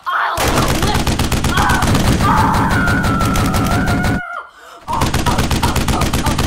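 Rapid automatic machine-gun fire, a sound effect: a long continuous burst that stops about four seconds in, then a second burst after a brief pause.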